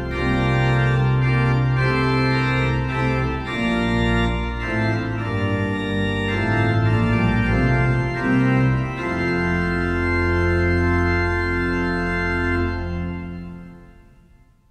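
Organ music: slow sustained chords over a deep held bass, fading out near the end.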